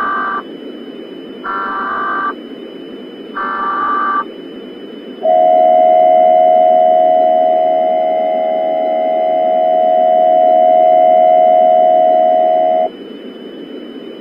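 Emergency alert system test signal: three short electronic bursts about two seconds apart, then a long steady two-tone attention signal lasting about seven and a half seconds, over a constant low hiss.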